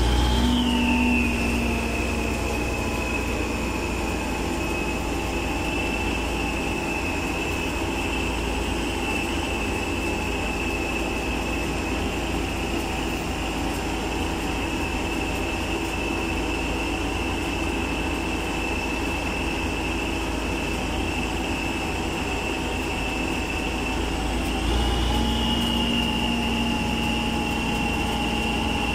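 Old tractor engine running steadily under load, pulling a brim-full trailer of about two tonnes of earth, with a steady high whine over the engine note. The whine drops a little just after the start, and about 25 seconds in the engine gets louder and slightly higher.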